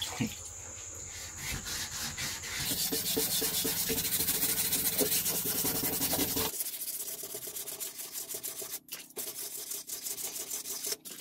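Wet sandpaper rubbed by hand over the painted metal of a van's door frame, in quick back-and-forth strokes, sanding chipped paint back smooth. It gets louder about three seconds in and drops back a few seconds later. A steady high insect trill sounds in the first few seconds.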